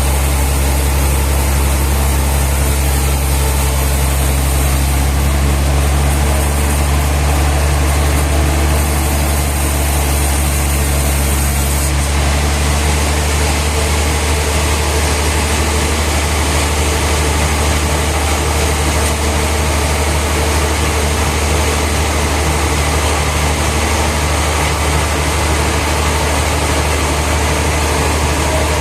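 Sawmill machinery running steadily with a deep engine-like hum. A high hiss drops away about twelve seconds in.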